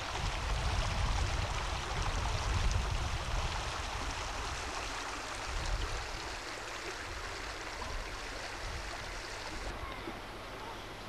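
River water flowing with a steady rushing sound, with a low rumble over it for the first four seconds or so.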